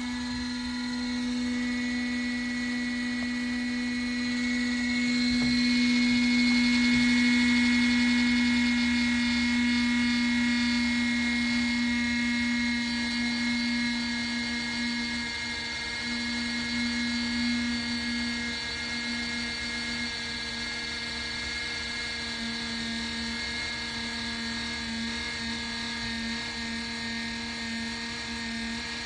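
Small plug-in space heater's fan motor running, a steady hum with a strong low tone and several higher whining tones above it.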